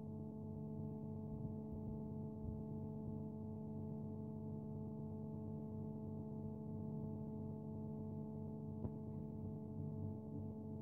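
A steady hum made of several fixed tones, with one faint click near the end.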